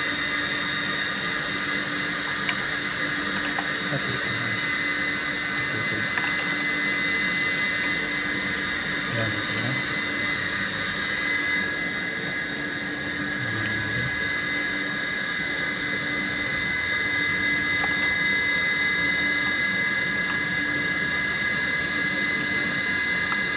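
Steady machine drone with a high, even whine, running without change in pitch or level.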